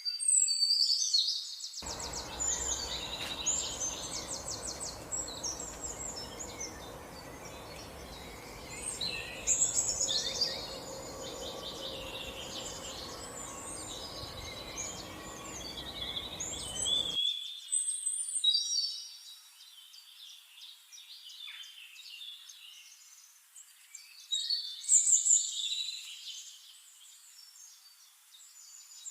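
A flock of sparrows chirping continuously, many short, overlapping calls at once. A low, even background noise runs under them through the first half or so and then drops away.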